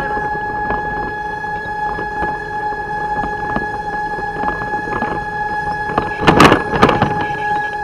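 Fire pumper truck driving, heard from inside the cab: engine and road noise under a steady high whine. Two short, loud hissing bursts come about half a second apart, some six and a half seconds in.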